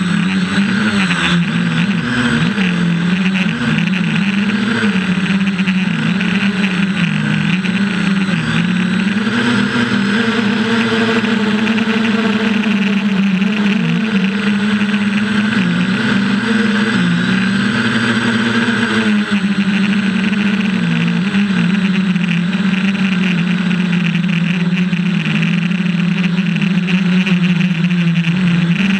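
FPV quadcopter's electric motors and propellers buzzing in flight, heard close from the onboard camera. The pitch wavers up and down with the throttle as it climbs.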